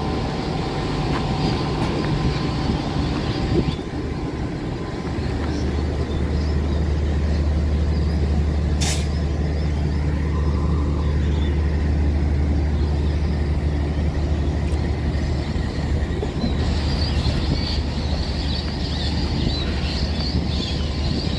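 Diesel locomotive engine running steadily with a deep, even hum, and a short sharp hiss about nine seconds in.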